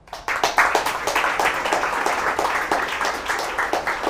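Audience applauding, breaking out suddenly just after the start and going on at an even level as many overlapping claps.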